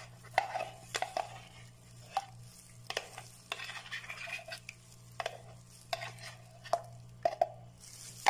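A spatula scraping condensed milk out of a container into a pot of milk, with irregular clicks and taps of the spatula against the container. A faint steady low hum runs underneath.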